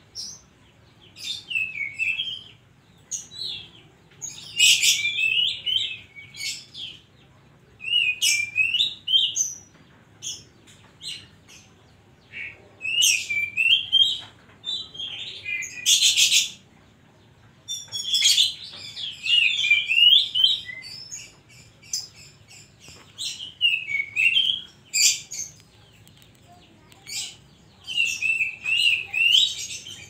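Caged Oriental magpie-robin (kacer) singing vigorously. Its loud, varied song comes in bursts of sweeping whistled phrases and harsher buzzy notes, with short pauses between phrases.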